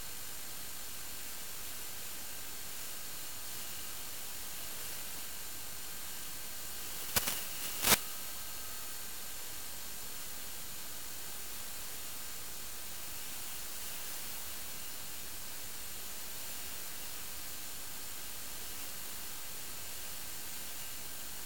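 Steady static hiss, with two short sharp crackles about seven and eight seconds in.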